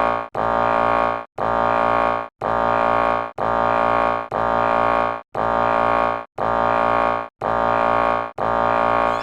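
Countdown timer beeps: a buzzy electronic tone sounds once a second, each lasting nearly a second with a short gap between, nine times in a row.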